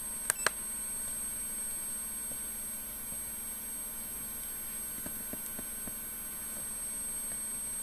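Faint steady high-pitched electronic whine over a low electrical hum, with two short clicks about half a second in.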